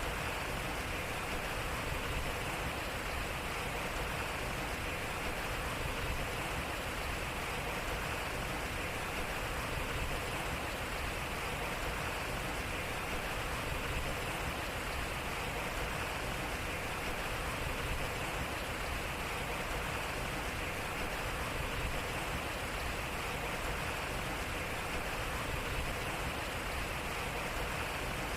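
Water running and splashing steadily off a turning water wheel. The same few seconds repeat about every four seconds.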